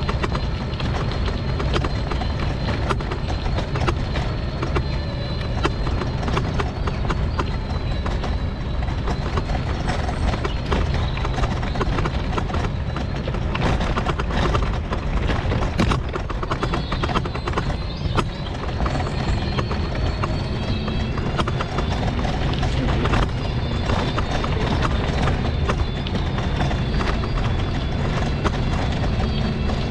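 Folding mobility scooter riding along, its wheels and frame rumbling steadily with a continuous run of irregular rattles and knocks from the uneven ground.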